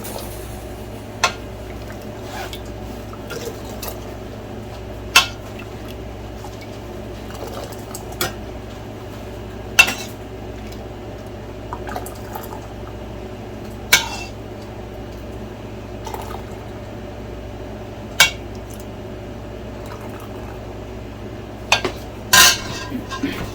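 Kitchen utensils clinking against a pot and glass jars while liquid herbal cough syrup is ladled into jars, with sharp clinks every few seconds over a steady low hum.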